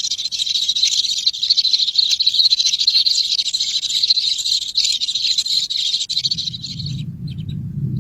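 Dense, continuous high-pitched chirping of birds that cuts off suddenly about seven seconds in. A low rumble comes up just before the chirping stops.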